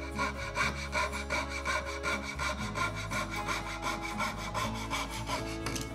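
Fret saw cutting through a wooden board, its fine blade rasping in rapid, regular strokes.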